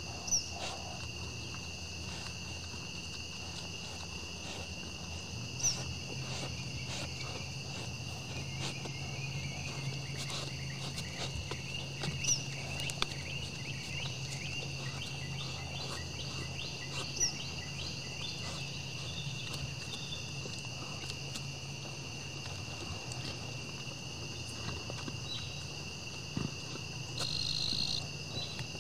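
Steady evening chorus of insects, a continuous high drone in two pitches. About every five seconds, four short, sharp upward chirps stand out above it.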